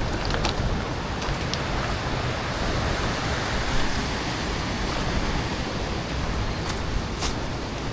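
Steady rushing of a mountain river, with a few faint clicks over it.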